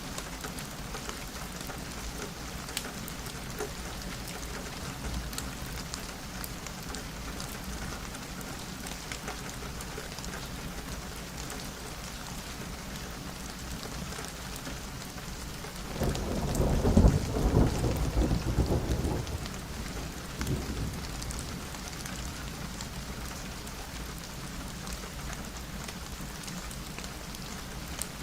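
Steady rain falling, with a roll of thunder that swells about sixteen seconds in and dies away over roughly four seconds, followed by a smaller rumble.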